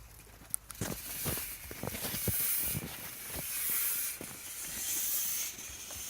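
Fog machine hissing in repeated surges, its fog being run through snow to cool it so it hangs low. A few soft thumps in the first half.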